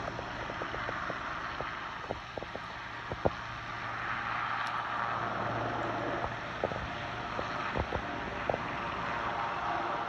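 Helicopter running on the ground with its rotors turning, a steady turbine-and-rotor rush with a low hum beneath. A few light clicks are scattered through it.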